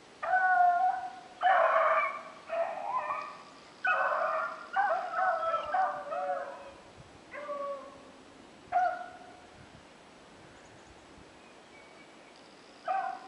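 Rabbit hounds baying in irregular, drawn-out pitched cries, the way hounds give voice while running a rabbit's scent. The cries come thick and fast for the first several seconds, then a few spaced-out ones, the last near the end.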